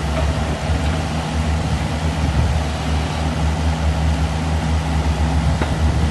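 Kubota KX71-3 compact excavator's diesel engine running steadily with a low hum.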